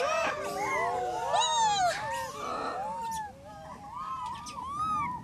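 Rhesus macaques calling: many short coos that rise and fall in pitch overlap one another, thinning briefly about three seconds in.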